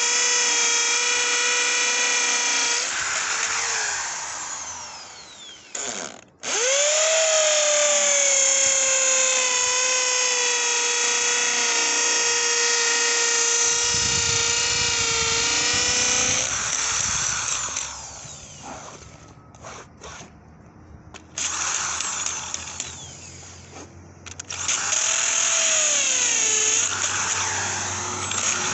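Electric drill boring into a concrete slab. The motor's steady high whine winds down and stops a few times between runs, starting up again about six seconds in and near the end.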